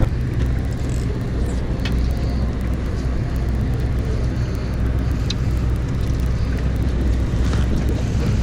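Sportfishing boat's engine running steadily with a low drone, heard on the open deck with a wash of wind and water noise over it.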